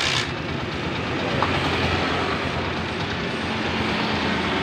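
Honda TMX 125 Alpha's single-cylinder four-stroke engine running steadily after a tune-up, without the tick it had ('wala na lagitik'). A short rush of noise sounds right at the start.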